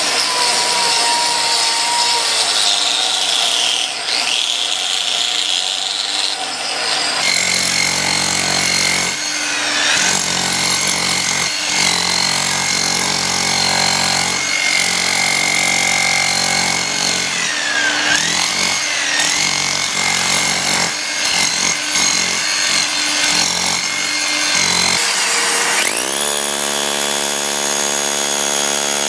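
Concrete being cut by power tools with dust-extraction shrouds on a vacuum line: first a hand-held angle grinder grinding the concrete floor, then, about seven seconds in, a demolition hammer chiselling concrete. Near the end a demolition hammer fitted with a drill bit starts up with a rising whine and runs steadily.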